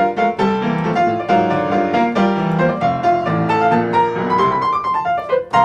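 Piano playing the closing bars of a bright pop tune: a melody over repeated chords, with a strong chord struck near the end.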